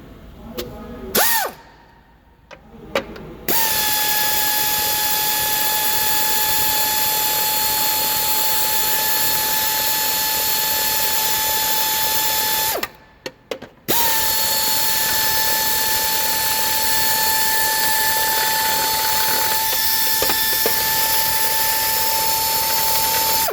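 Power tool running with a steady high whine over a hiss, in two long runs of about nine and ten seconds with a brief stop between them, after a short blip about a second in.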